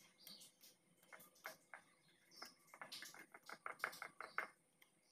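Wire whisk mixing flour and liquid in a glass bowl: faint clicks and taps of the metal wires against the glass, coming quickly from about three seconds in.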